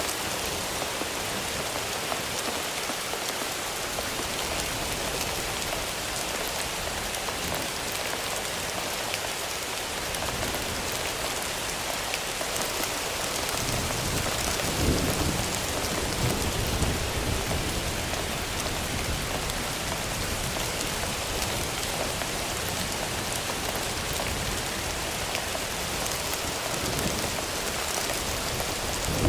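Thunderstorm: steady rain falling, with a low roll of thunder that rises about halfway through and keeps rumbling under the rain.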